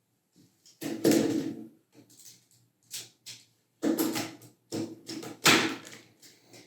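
Hard plastic toy robot parts being handled, folded and clicked together. The sound is a series of short rustling, clicking bursts, loudest about a second in and again around four and five and a half seconds in.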